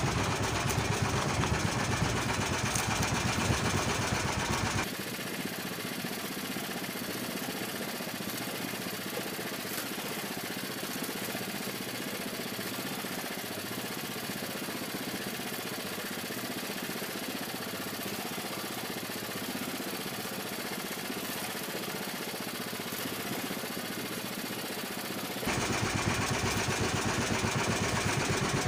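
Small engine of an outrigger fishing boat running steadily. About five seconds in, the sound drops and loses its low rumble, and it comes back fuller near the end.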